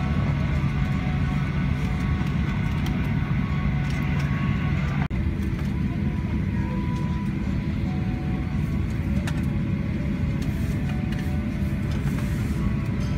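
Cabin noise of a Boeing 737-800 taxiing with its CFM56-7B engines at idle: a steady low rumble with a hum. About five seconds in it breaks off for an instant at a cut in the recording, then the same rumble carries on.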